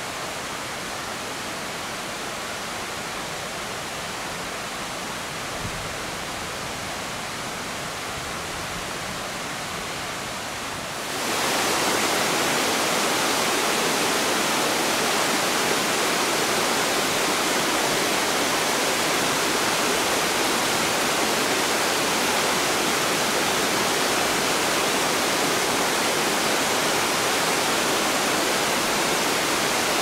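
A small waterfall cascading over rock slabs in a steady rush of water. About a third of the way in, the rush turns suddenly louder and brighter as the sound comes from closer to the falling water.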